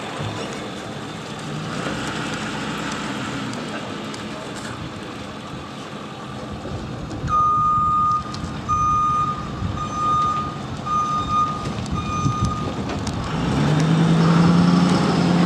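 A vehicle's reversing alarm beeping five times, about one beep a second, the beeps at one steady pitch. A low steady hum swells up near the end and becomes the loudest sound.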